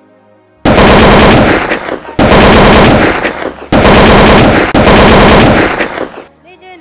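Machine-gun sound effect: three long bursts of rapid automatic fire, each about a second and a half, the last trailing off.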